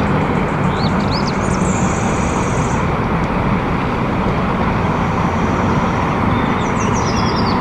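Concrete mixer truck's diesel engine running steadily with a deep rumble, its drum turning as it discharges concrete down the chute.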